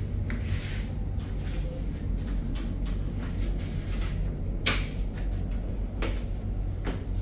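Footsteps and knocks on wooden stairs and flooring over a steady low hum, with one sharp knock about halfway through and another near the end.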